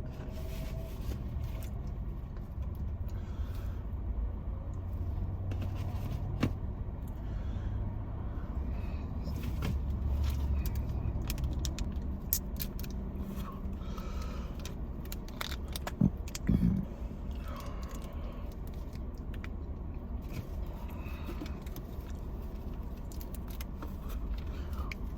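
Steady low rumble of a car interior, with scattered clicks, rustles and a couple of louder knocks from someone eating and handling food packaging.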